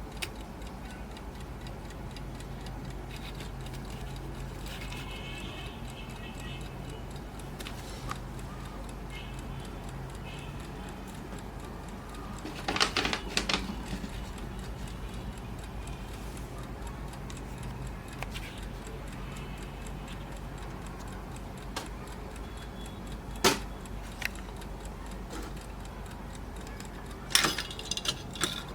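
Golden Time Romanian mechanical alarm clock ticking steadily. A few louder sharp clicks and knocks come near the middle and again near the end.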